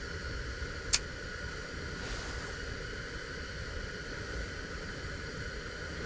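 Steady hiss with a faint, steady high hum running through it, and a single sharp click about a second in.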